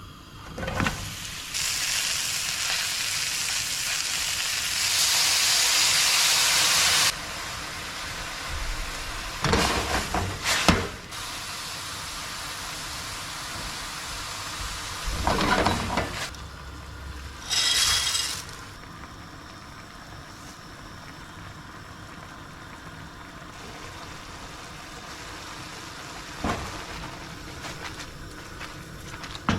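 Food sizzling in a hot frying pan. The sizzle comes up loud about a second and a half in and drops after about seven seconds to a quieter, steady frying, with a few short knocks scattered through.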